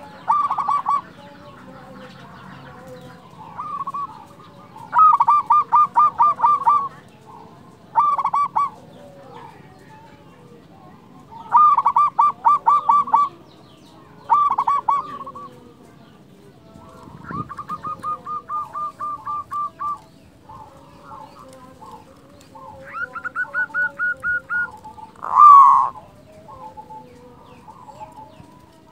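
Local zebra doves (perkutut) cooing in about eight bouts of rapid staccato coos, each a second or two long, some slightly higher-pitched than others. Small birds chirp faintly between the bouts, and near the end there is one loud sweeping call.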